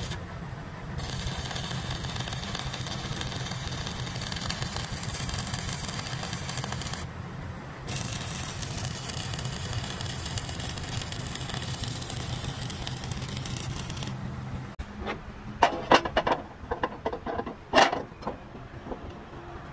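An engine running steadily with a hiss over it, dropping briefly twice, until it cuts off about 15 seconds in. Several sharp metallic knocks and scrapes follow.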